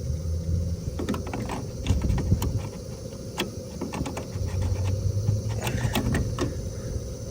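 Irregular clicks, taps and light rattles of a duct smoke detector's small plastic and metal parts being handled, over a steady low hum of running equipment.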